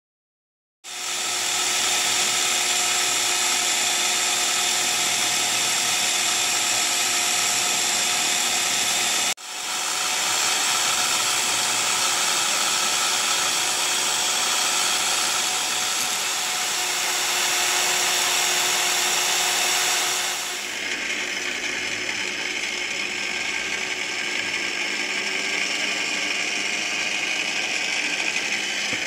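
Benchtop drill press running with a steady motor whine while a flat file is held against a piece spinning in its chuck, with a brief break about nine seconds in. About twenty seconds in the sound drops a little and dulls as the press drills into a plastic bottle cap clamped in a vise.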